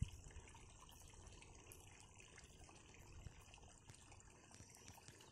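Near silence: faint outdoor background hiss with a few faint ticks.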